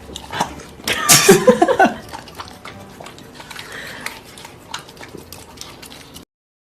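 A pet animal makes a brief vocal sound about a second in, followed by small clicking and smacking sounds. The sound cuts off suddenly near the end.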